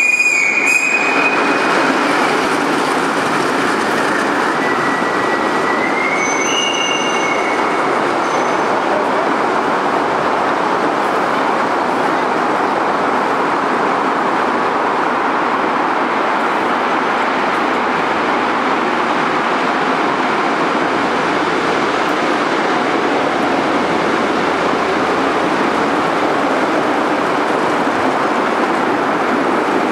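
Live-steam five-inch-gauge model locomotives with riders rolling along a steel track: a steady rolling noise of small wheels on rails, carrying in a large hall. There are a few short high-pitched tones in the first second and again about six to eight seconds in.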